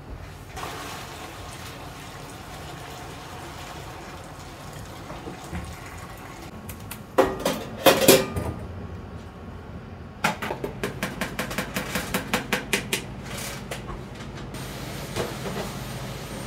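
Metal kitchenware clattering: a few sharp metal knocks about halfway through, then a run of quick, even strokes, about five a second, for around four seconds, over a low steady kitchen background.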